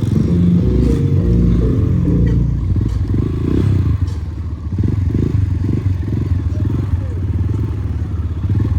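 Off-road vehicle engine running under load. It eases off briefly about four seconds in, then picks up again.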